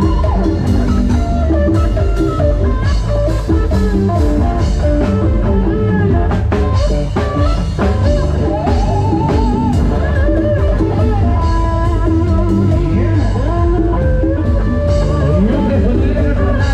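Live band music played through a loud outdoor sound-truck PA with Thai Audio SR18 bass cabinets and TD-112 mid cabinets: an electric guitar lead with bends and vibrato over keyboard and drum kit, with a heavy, steady bass.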